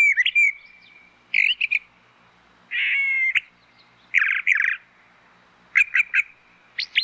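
A thrasher singing: a string of varied short phrases, many given in quick twos or threes, some clear and whistled and one buzzy, with short pauses between them.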